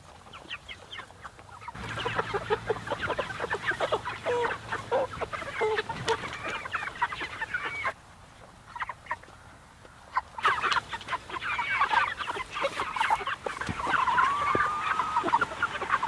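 A flock of Cornish cross meat chickens clucking and chirping, many short calls overlapping, with a lull of about two seconds midway and a longer drawn-out call near the end.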